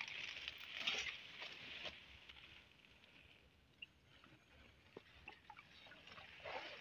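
Faint rustling of dense grass and leaves as hands grope through the weeds, a little louder at the start and again near the end, with a couple of small clicks in between.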